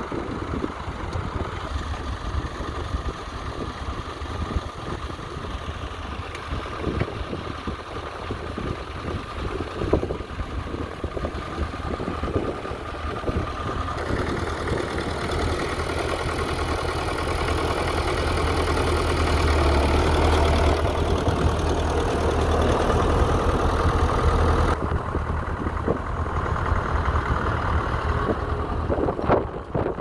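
Massey Ferguson 35 tractor engine running steadily under load while pulling a plough. It grows louder around the middle as the tractor passes close by.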